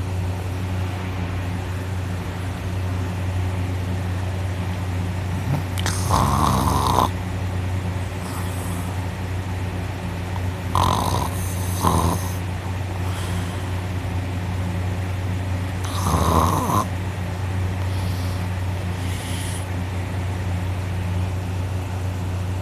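A person snoring through a mouth held open with the nose pinched shut: three loud snores about five seconds apart, the middle one broken in two, with fainter breaths between, over a steady low hum. The snorer takes the sound for the soft palate vibrating hard.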